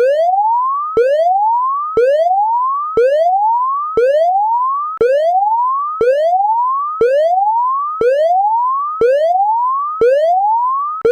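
Electronic whooping alarm tone, about once a second: each whoop is a pitch sweep rising steadily from low to high, then cutting off and starting again from the bottom, in an even, unbroken rhythm.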